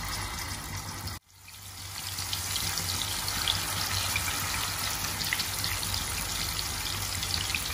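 Marinated chicken pieces sizzling in hot oil in a stainless steel pan, a dense hiss with sharp crackles and pops. The sound cuts out abruptly about a second in, then builds back up to a steady sizzle.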